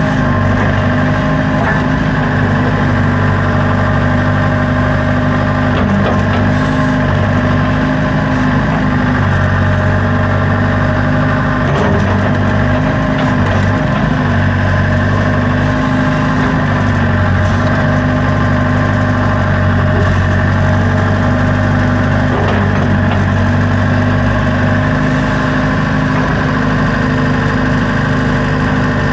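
Backhoe loader's diesel engine running steadily, its note shifting now and then under load as the backhoe works.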